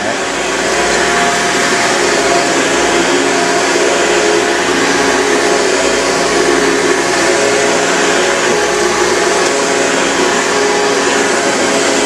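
Vintage Hoover upright vacuum cleaner running steadily while pushed over carpet: a constant motor and fan hum with several steady tones over a rush of air. The owner feels the motor sometimes doesn't run as fast as it should and wonders whether its brushes need adjusting or replacing.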